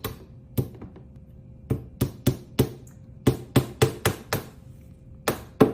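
A hammer tapping small nails through the back panel of a flat-pack engineered-wood bookcase. The sharp strikes come in short runs of three to five, about three or four a second, with brief pauses between runs.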